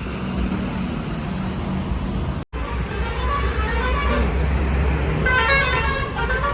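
Road traffic: engines running and vehicle horns honking, with the sound briefly cutting out about two and a half seconds in.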